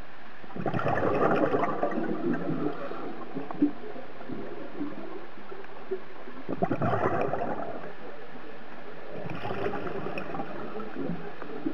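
Scuba diver's regulator exhaust heard underwater: three exhalations, each a burst of gurgling bubbles, over a steady low hiss.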